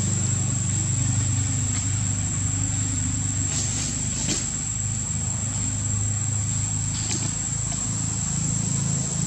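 Steady low motor hum with a constant high-pitched whine above it, and a few faint clicks around the middle and again later.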